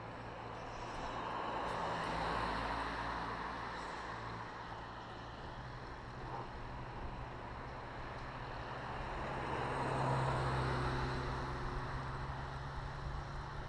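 Cars passing on the road, their tyre and engine noise swelling and fading twice, about two seconds in and again about ten seconds in.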